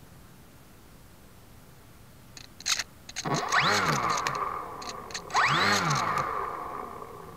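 The crashed BD-5 model plane's motor and propeller spin up twice from a standstill. Each run-up is a fast rising whine that then holds and fades, and a few sharp clicks come just before the first.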